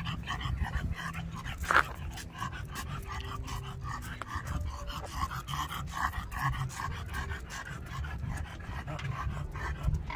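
English bulldog panting in quick, even breaths.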